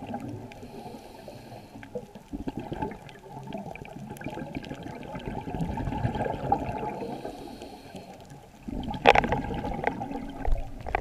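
Scuba diver breathing through a regulator underwater: exhaled bubbles rumble and gurgle in surges, with a faint hiss of inhaling between them. The loudest surge starts suddenly near the end.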